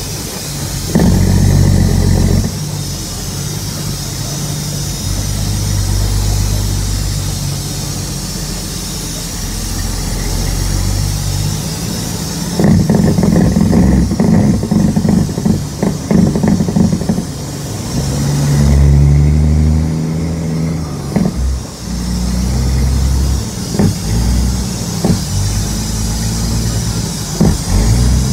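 Cat C15 inline-six diesel engine of an International 9300 dump truck, heard from inside the cab, pulling under load. Its note rises and falls several times as the truck works through the gears of its 18-speed transmission, with road and wind hiss underneath.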